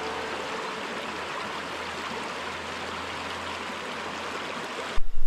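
Shallow mountain river rushing steadily over rocks and boulders in small rapids. About five seconds in, it cuts off suddenly and gives way to a louder low rumble.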